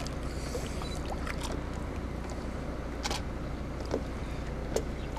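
Water sloshing with a few short splashes, about five in all, as a wading man holds a large wels catfish at the surface of the river, over a steady low rumble.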